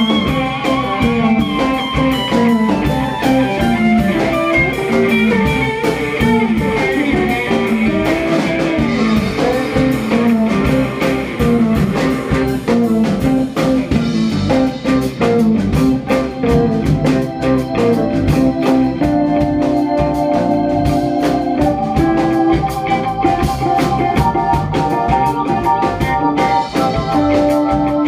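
Rock band playing live without vocals: electric guitars, keyboard and drum kit. A wavering, bending lead line runs through the first half, and long held notes take over in the second.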